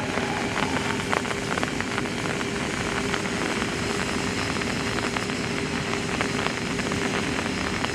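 Steam locomotive C57 1 letting off a steady hiss of steam over a constant hum, with scattered irregular clicks and no rhythmic exhaust beats.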